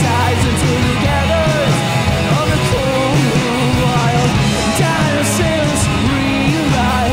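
Rock band playing live: electric guitar, bass guitar and drums, with a lead vocal sung over them.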